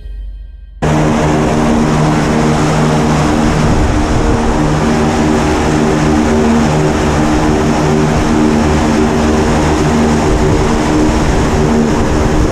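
Single-engine propeller plane's engine running steadily close by, a loud constant drone with a hiss over it, starting abruptly about a second in.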